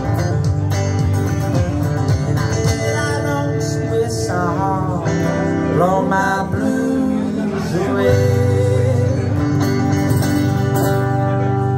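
Live acoustic guitar and electric guitar playing a country tune together, with gliding lead notes in the middle.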